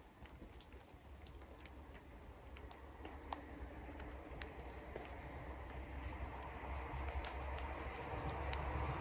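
Woodland ambience: scattered sharp ticks over a low rumble and a growing hiss. From about six seconds in, a bird calls a rapid run of short, high notes, about five a second.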